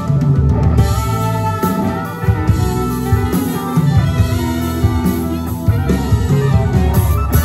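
Live rock band of drum kit, electric guitars, electric bass and keyboards playing the last bars of a pop-rock song.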